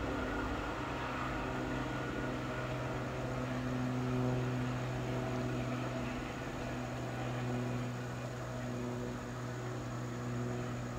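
Diesel locomotive engine drone from a train running away down the line, a steady low hum with fainter tones above it that eases off slightly in the second half.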